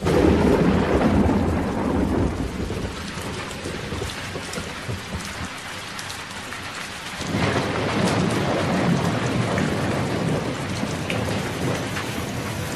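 Steady rain with rolling thunder. A low rumble at the start fades, and a second roll builds about seven seconds in and carries on under the rain.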